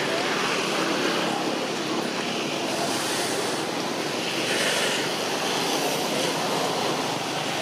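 Steady rushing outdoor background noise, swelling a little about three seconds in and again about five seconds in.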